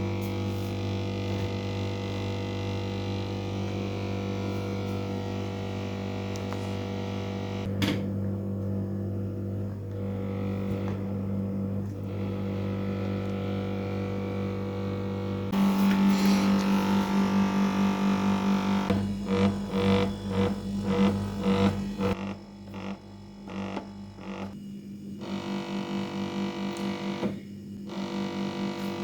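Refrigerator giving off a steady mains-frequency hum. About halfway through it grows into a louder rattling buzz with rapid pulsing, the sign of a part whose retaining clips have loosened and now vibrate.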